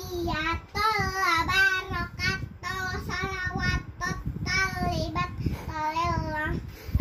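A young girl chanting an Arabic recitation in a sung, melodic voice, in phrases whose pitch wavers up and down, with short pauses between them.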